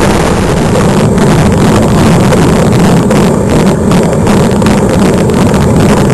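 Steady loud roar of wind buffeting the microphone over the engine of the moving vehicle carrying the camera, with a low rumble and no breaks.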